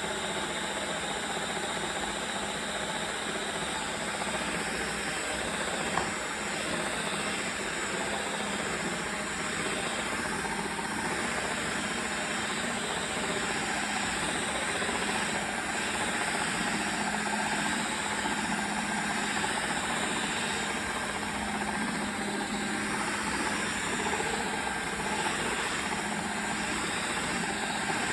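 LG CordZero A9 cordless stick vacuum cleaner running steadily, with a constant motor whir and airflow hiss. A single brief click comes about six seconds in.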